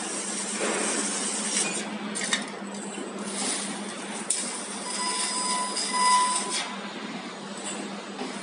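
Fiber laser tube cutting machine at work on carbon steel tube: a steady hiss with a constant low hum, broken by a few sharp metallic clinks.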